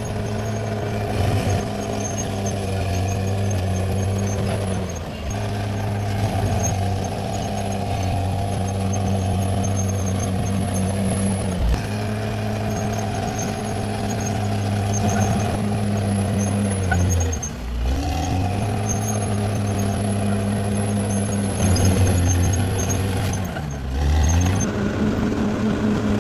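Caterpillar D6R XL bulldozer's engine running steadily under load, its pitch dropping briefly and recovering about every six seconds as the machine works.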